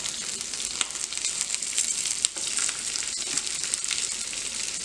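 Hot oil sizzling in a frying pan as boiled potatoes are crumbled into it by hand, a steady hiss with scattered crackles.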